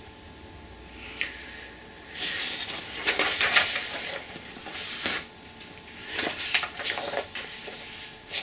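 Paper and clear plastic project bags rustling and crinkling as they are handled and sorted, with a few sharp clicks mixed in.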